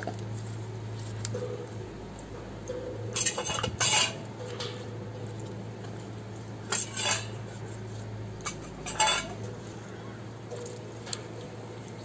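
A plucked chicken carcass is being washed by hand in a stainless steel bowl of water, giving splashing and clinks against the metal bowl. These come in a few short bursts, about three seconds in, about seven seconds in and about nine seconds in.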